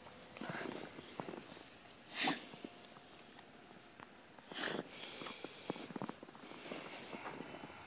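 A young dog snorting in snow, two short sharp blasts of breath through the nose, about two seconds and about four and a half seconds in, over faint crunching of its paws in the snow.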